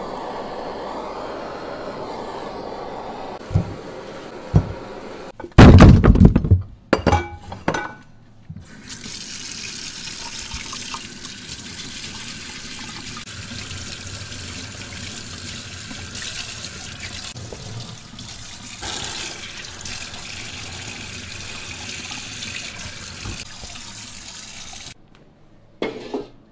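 A butane blowtorch hissing steadily, then a few loud knocks and clatters, then a kitchen tap running steadily into a stainless-steel sink as pig's trotters are rinsed under the stream. The water stops about a second before the end.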